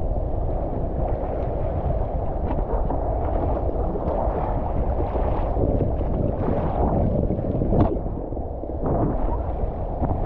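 Wind buffeting the microphone over rushing, splashing water while riding a wing foil board. There is one brief sharp knock about three-quarters of the way in.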